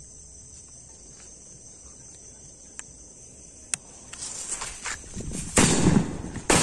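Three bundled King Bomb firecrackers lit together: after a lull, the fuse crackles and sputters, then they go off in a loud burst about five and a half seconds in, with another sharp bang just before the end. Crickets chirp steadily underneath.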